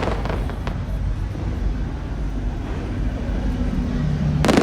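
Fireworks: a low, steady rumble between shells, with a few faint cracks in the first second and a loud cluster of bangs near the end.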